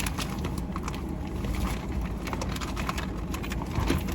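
Steady low rumble of a car heard from inside the cabin, with a few light clicks and knocks.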